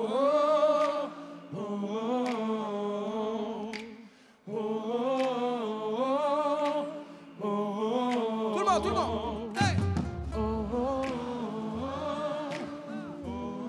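Many voices humming a repeated wordless melody together in short phrases, nearly unaccompanied, as a concert crowd joins the band in singing along; a bass line comes in about nine seconds in.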